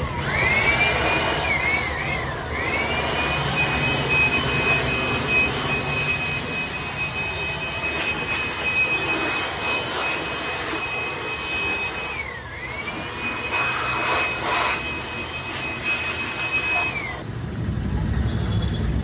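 Jakmister 950 W electric air blower running: its motor spins up to a high whine over a rush of air, dips briefly a few times as the speed changes, and cuts off about seventeen seconds in.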